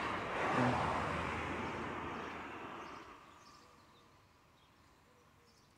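A road vehicle passing, a broad rush of tyre and engine noise that fades away over about three seconds.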